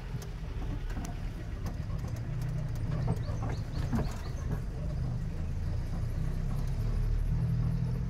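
Off-road vehicle's engine running under load as it climbs a rough dirt track, getting gradually louder, with scattered knocks and rattles from the bumpy ride.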